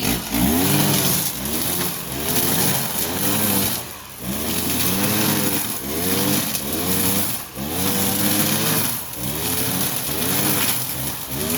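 Kawasaki TJ45E brush cutter's two-stroke engine revving up and dropping back over and over, about once a second, as it cuts grass with a nylon line head.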